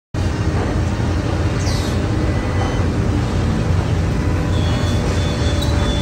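Woodworking shop machinery running steadily: a loud, dense rumble with a few faint high tones, cutting in abruptly just after the start.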